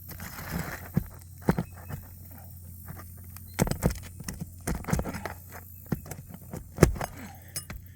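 A metal roofing hand tool knocking and scraping on asphalt shingles as the last nail is worked out and the damaged shingle is pulled free: scattered sharp clicks and knocks, the loudest a little under seven seconds in.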